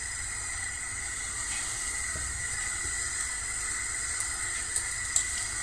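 Steady hiss of hot oil in a frying pan on a gas burner, with a couple of faint clicks near the end as the first syrniki (curd fritters) go into the pan.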